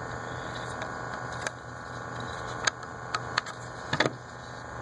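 Steady hum of a vacuum pump drawing soldering smoke away through a tube, with a few small sharp clicks and taps as the sensor and its parts are handled on the circuit board.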